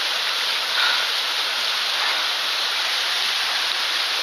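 Rushing mountain stream water, a steady hiss of cascading flow.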